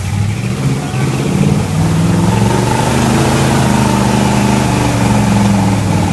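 1976 Ford F-250 highboy's engine revving under load as the truck climbs out of a muddy rut, the revs rising over the first two seconds and then held high. A steady hiss runs alongside from about two seconds in.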